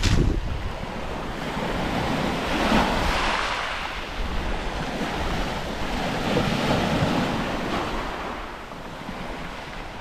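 Small sea waves breaking and washing up over a pebble beach, two swells of surf about three and a half seconds apart. Wind rumbles on the microphone, most strongly at the start.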